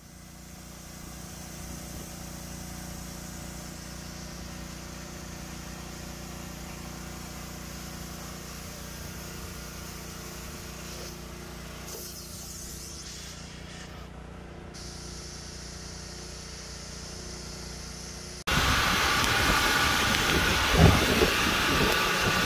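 Carpet extractor's vacuum motor running steadily, a constant hum with a hiss, as its upholstery tool is drawn over a carpet floor mat. About eighteen seconds in, it cuts abruptly to a much louder, rough rushing noise with a few knocks.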